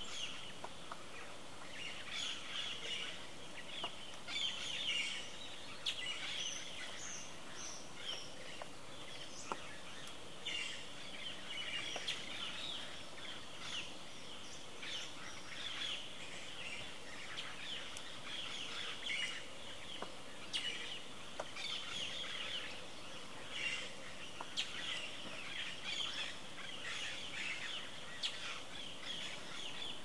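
Small birds chirping and chattering in dense, rapid runs of short high calls, over a faint steady background hiss.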